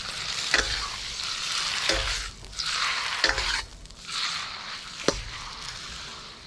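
Noodles and scallions sizzling in hot oil in a wok as they are stirred and tossed to coat them in the scallion oil, with a few sharp clinks of the metal spatula against the wok.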